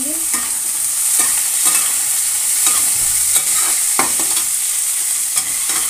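Chopped carrots, peas and onion frying and sizzling in a metal kadhai while a flat spatula stirs them. The spatula scrapes and clinks against the pan about eight times.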